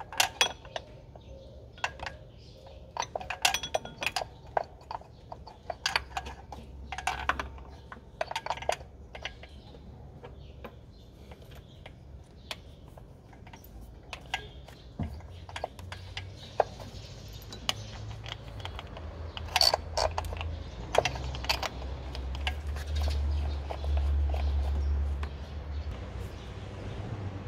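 Hand tools and metal parts clinking and knocking irregularly while a belt-tensioner shock absorber is fitted to an engine, with a low rumble growing louder through the second half.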